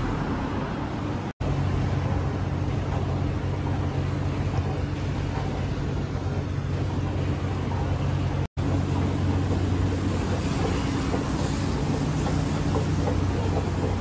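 A steady low mechanical drone with a noisy hum over it, interrupted twice by a split-second silent gap, about one and a half seconds in and about eight and a half seconds in.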